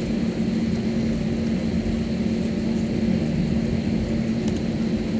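Jet engines of an Airbus A320-family airliner heard from inside the cabin: a steady hum with a strong low tone as the plane rolls along the ground before takeoff.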